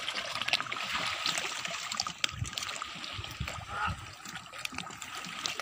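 Shallow seawater lapping and trickling among shoreline rocks: a steady crackly wash of many small ticks and trickles, with a few soft low thumps in the middle.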